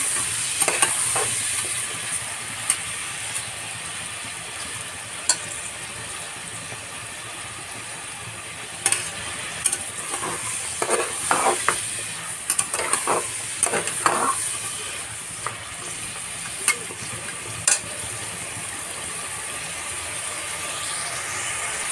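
Mutton pieces sizzling in hot ghee in an aluminium pressure cooker, with a metal spatula scraping and clacking against the pot as the meat is stirred and browned. The scraping comes in clusters, busiest around the middle.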